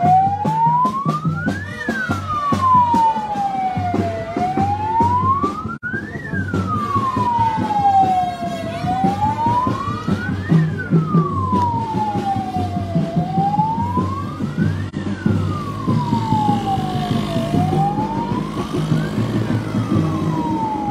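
Vehicle siren wailing, rising and falling slowly five times, over a rhythmic low beat.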